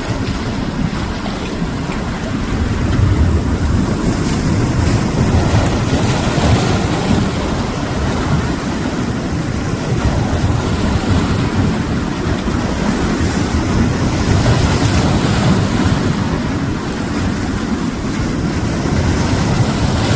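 Sea surf washing over shoreline rocks, swelling and easing, with wind rumbling on the microphone.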